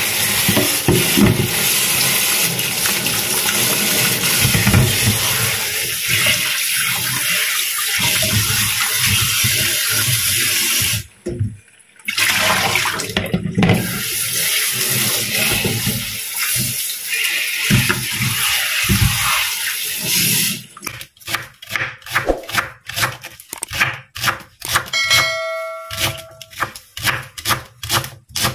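Kitchen tap running onto celery and a carrot in a plastic colander in a stainless steel sink while hands rub them clean, with a brief break partway. About two-thirds of the way through it gives way to a knife slicing celery on a wooden cutting board, about three cuts a second, with a short ringing tone in the middle of the chopping.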